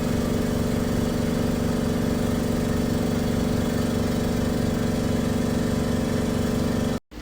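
Hydrafacial machine's spray mist gun running: a steady motor hum that cuts off suddenly near the end.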